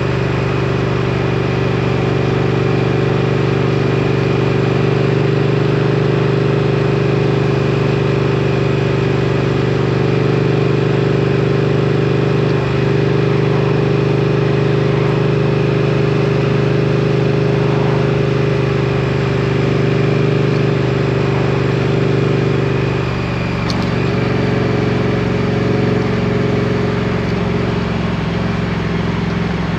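Triumph Street Twin's 900 cc parallel-twin engine running at a steady note while riding. The engine note changes about three quarters of the way through.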